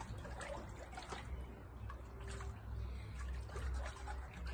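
Water sloshing and splashing lightly in a small round portable ice-bath tub as a person shifts about in it, with scattered short splashes, over a steady low rumble.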